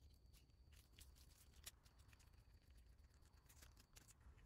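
Near silence: faint scattered small clicks and rustles of gloved hands handling a plastic odometer gear assembly, over a faint steady high-pitched tone.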